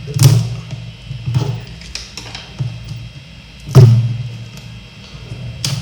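Background music with a low bass line and a drum beat, with a few sharp hits at irregular spacing.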